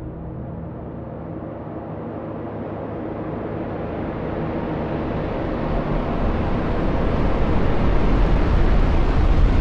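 Designed low whoosh sound effect: a deep, rumbling rush of noise that swells slowly and steadily louder and brighter.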